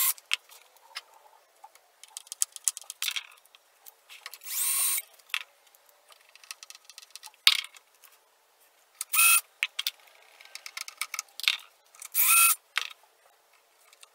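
Cordless drill run in about six short bursts, each under a second, at the screw holes of a European concealed cabinet hinge, with light clicks and rattles of handling between the bursts.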